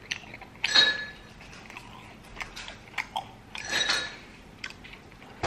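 Close-up chewing and biting of crispy KFC fried chicken, with many wet mouth clicks and two louder crunchy bites, about a second in and near four seconds.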